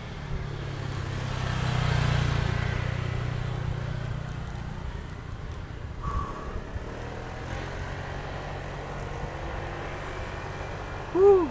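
A motor vehicle passing on the road: its engine hum swells to loudest about two seconds in, then fades to a steady low rumble. Near the end comes a short rising-and-falling tone, the loudest moment.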